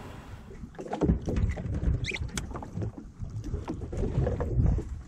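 Wind rumbling on the microphone over water washing against a small boat's hull at sea, uneven and gusty, with a few light knocks.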